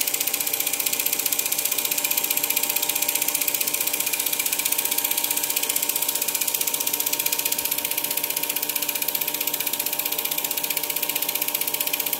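Film projector running steadily: a motor and fan hum under a fast, even clatter from the film transport.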